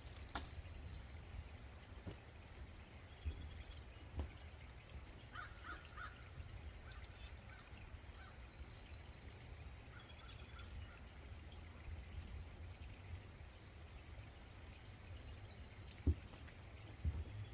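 Quiet outdoor ambience: a steady low rumble with faint, scattered bird calls and high chirps, and a few soft knocks.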